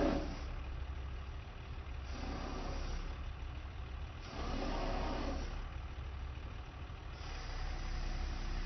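Auto crane truck's engine idling with a steady low rumble. The engine note swells briefly twice, about two seconds in and again about four and a half seconds in.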